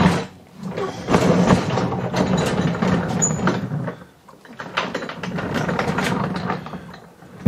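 Castors of a loaded chipboard roller cabinet rolling across a concrete floor with a rumble, in two pushes: one from about a second in, a second weaker one after a short pause in the middle.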